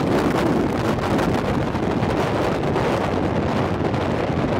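Wind blowing across the microphone, a steady rush of noise.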